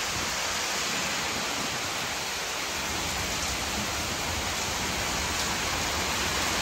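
Heavy storm rain pouring steadily onto a paved courtyard: a dense, even hiss.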